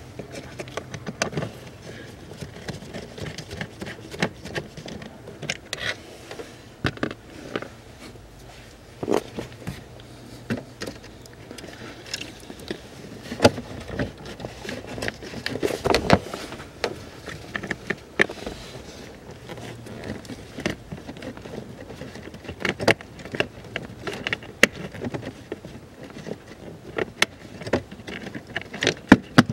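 Irregular clicks, taps and light knocks of a hand tool and plastic parts being worked under a car's dashboard, as small bolts are undone and a part is taken off the heater housing.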